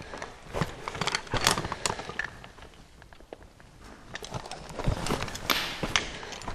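Footsteps scraping and clicking irregularly over rocky rubble on a mine floor. They die down for a moment about halfway through, then a longer scrape comes near the end.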